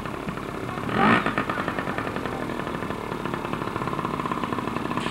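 Small dirt bike's engine running steadily at idle, briefly louder about a second in.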